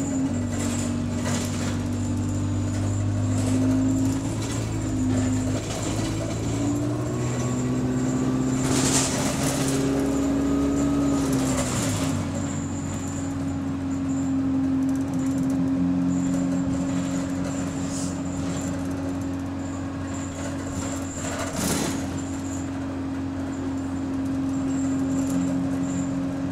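A bus's diesel engine running, heard from inside the passenger saloon. Its pitch shifts up and down through the first half as it works through the gears, then settles into a steady drone. A few short knocks and rattles are heard, the clearest about a third of the way in.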